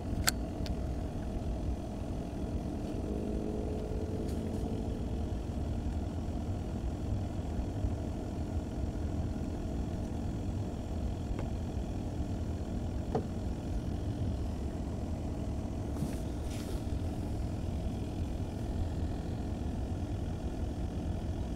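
A steady low engine drone with a few faint ticks.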